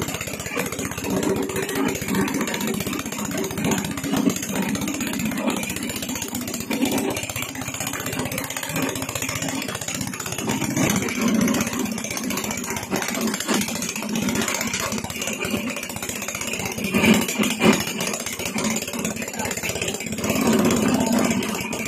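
A homemade ice-block crusher running steadily, its motor and crushing drum making a dense chatter of small knocks. It grows louder briefly twice near the end.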